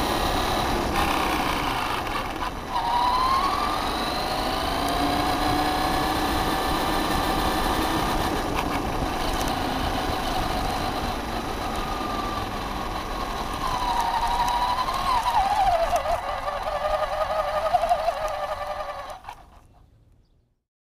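Traxxas Stampede 4x4 RC truck's electric motor whining as it drives, the pitch rising and falling with the throttle over a low road rumble, heard from the truck's onboard camera. The sound fades out near the end.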